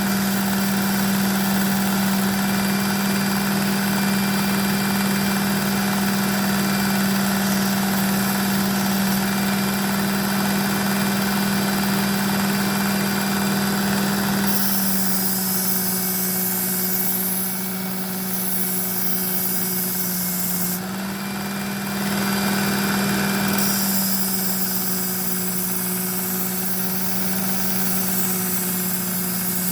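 Work Sharp Ken Onion belt knife sharpener running with a steady motor hum. About halfway through, a knife blade is pressed to the moving abrasive belt twice, adding a loud grinding hiss, and the motor's pitch sags slightly under the load.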